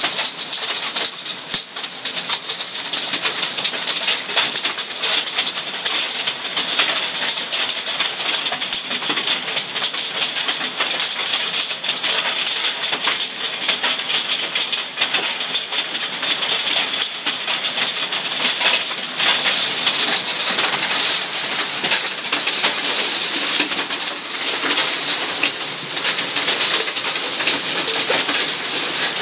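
Hailstorm: hailstones and heavy rain pattering and clattering on garden paving, leaves and surfaces, a dense steady crackle of countless small impacts.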